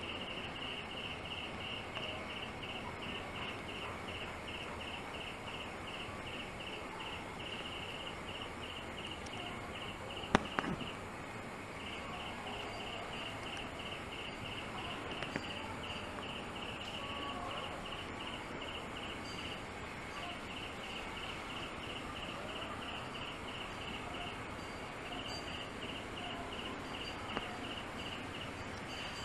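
An insect chirping in a steady pulsing rhythm, about three chirps a second, over a steady background hiss. A single sharp knock about ten seconds in is the loudest sound.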